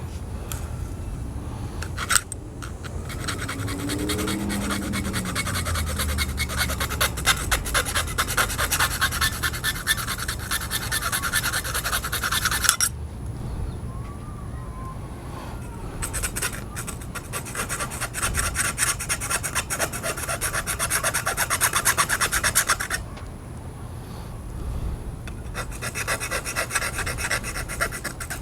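Hand file rasping in quick strokes on the thin metal of a fishing rod's tip guide, filing through it to take off the chipped tip. The strokes come in three spells, with short breaks about halfway through and again near the end.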